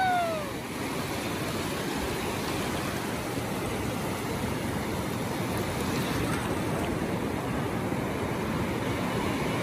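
Ocean surf washing in over shallow sand, a steady rushing wash of breaking waves. At the very start a high held cry slides downward and ends about half a second in.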